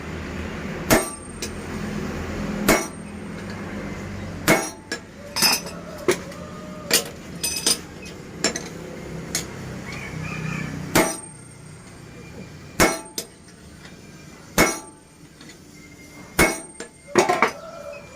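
Blacksmith forging: about fifteen hammer blows on metal, spaced irregularly at roughly one a second, some leaving a short metallic ring. A low hum sits under the first few seconds.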